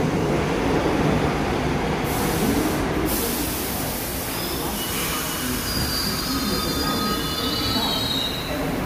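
R62A subway train moving on curved track: a steady rumble, a short burst of air hiss about two seconds in, then high, thin wheel squeal over the second half.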